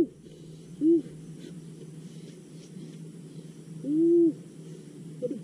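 A woman's short hooting 'hoo' sounds through pursed lips, rising and falling in pitch: a brief one about a second in and a longer one around four seconds in, with a short squeak near the end, over a faint steady hum.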